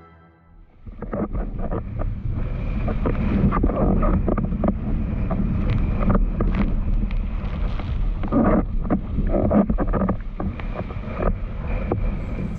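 Wind buffeting the microphone over rushing, splashing water as a windsurf board sails across the sea, with many short splashes and knocks through the steady rush.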